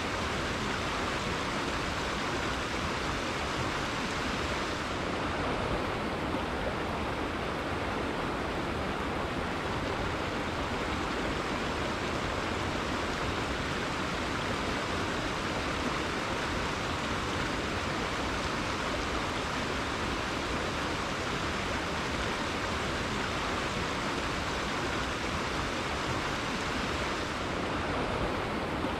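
Rainforest river flowing: a steady, even rush of running water.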